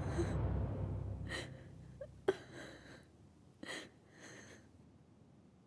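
A woman's short, shaky breaths and gasps, four of them about a second apart, quiet, over a low rumble that fades away in the first two seconds.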